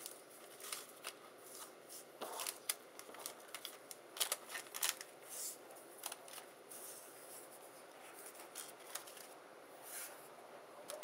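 Die-cut cardstock pieces being stacked and slid back into a clear plastic package: faint papery rustling and shuffling with scattered clicks and crinkles of the plastic, a few louder ones around the middle.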